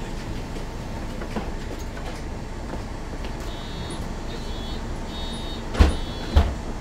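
The diesel engine of a 2008 MAN NL 273 Lion's City city bus idles steadily at a stop. A high, repeated beeping sounds over it in the middle, and two sharp thumps come about half a second apart near the end.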